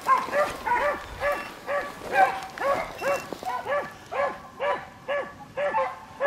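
Beagles baying while running a rabbit: one hound gives short, evenly spaced barks about two or three a second, and in the first half other hounds' higher voices overlap it.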